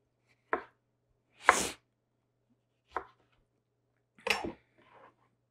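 Kitchen knife chopping tomatoes on a cutting board: four separate strokes, about a second or more apart, with one a little longer than the others.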